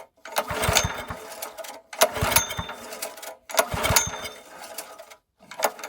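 Honda GX160 engine on a plate tamper being pull-started four times, about every second and a half, choke on and throttle at full: each pull a whirring rip of the recoil starter with the engine turning over but not firing. The engine will not catch, pointing to a fuel or carburettor fault.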